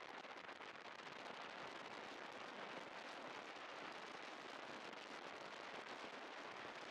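Steady rush of wind and road noise at a chest-mounted camera on a moving scooter, with a fine crackle all through and no clear engine note.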